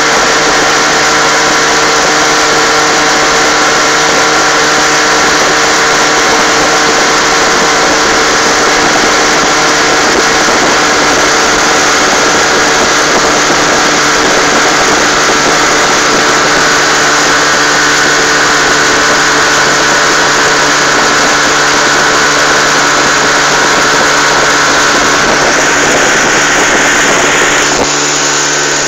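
Outboard motor running steadily at cruising speed, driving a small open boat, with the rush of water from the wake. It gets a little quieter just before the end.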